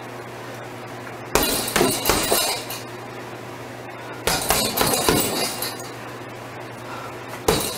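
Gloved punches landing on a heavy punch bag in three quick combinations of several hits each, about three seconds apart, with a clinking rattle from the bag's hanging hardware.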